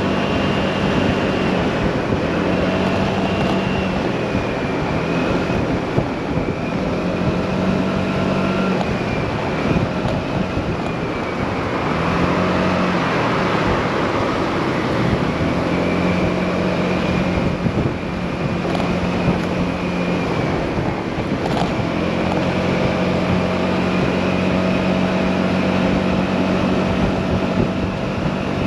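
Motorcycle engine running at road speed under heavy wind rush on the microphone from strong gusts; the engine note holds steady for a few seconds at a time, then drops away and returns as the speed changes.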